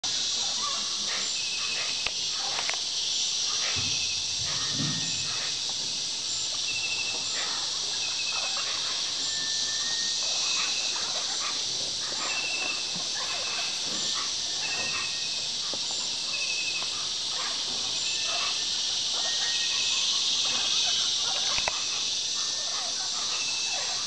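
Amazon rainforest insect chorus: a steady high-pitched buzzing hiss, with short chirps repeating at an even pace and scattered short harsh bird calls.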